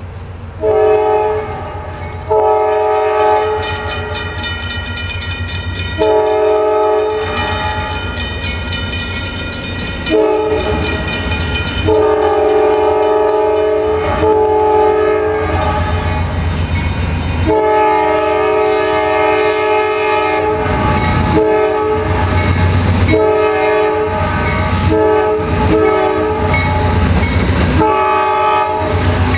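Norfolk Southern 9057's Nathan K5LA five-chime air horn blowing a chord for a grade crossing as the diesel locomotive approaches: a run of long blasts, then a quick string of short blasts near the end, over the low rumble of the engine.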